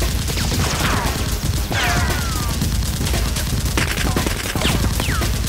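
Automatic gunfire sound effect dubbed over a Nerf blaster: rapid bursts of shots, with a few short falling whistles between them.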